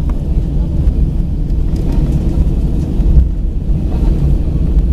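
Airbus A319 airliner's cabin noise beside the wing: a loud, steady low rumble of engines and undercarriage as the aircraft rolls along the ground.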